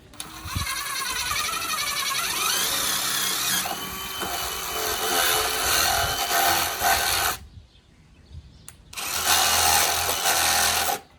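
Power drill running under load in two runs: one of about seven seconds with its pitch shifting, then a stop and a second run of about two seconds.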